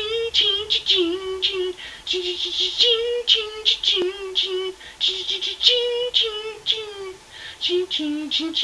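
High-pitched singing voice carrying a melody of short held notes, one syllable after another.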